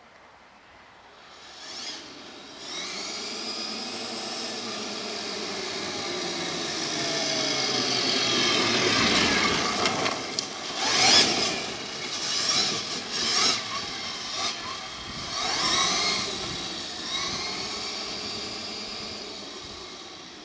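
A giant electric RC monster truck's brushless motor and geared drivetrain whining, rising and falling in pitch as the throttle is worked. In the middle stretch its tyres crunch and spray gravel in a run of loud rasps.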